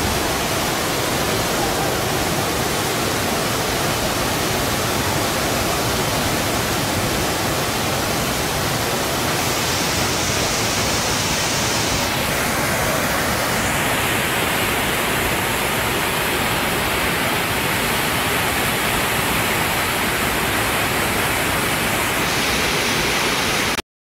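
Steady rushing noise of a flash flood: a torrent of muddy floodwater pouring down a street and sweeping cars along. It cuts off abruptly at the end.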